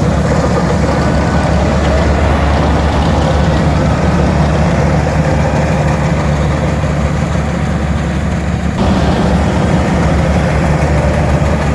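Rice combine harvester's engine running steadily and loudly while it works the field. About nine seconds in, the higher part of the sound drops away abruptly while the low engine note carries on.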